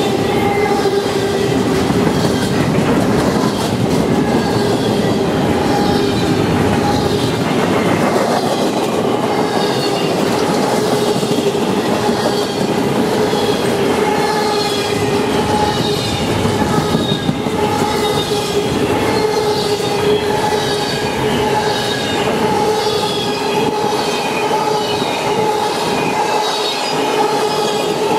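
Double-stack intermodal freight train passing close by, its well cars rolling steadily over the rails with a continuous steady squeal from the wheels.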